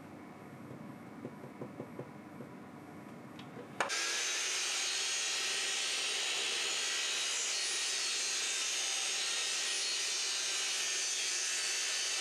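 A few faint knocks of handling, then about four seconds in a power tool starts abruptly and runs at a steady, unchanging level with a high hissing whir, at the miter station where plywood is being cut in two.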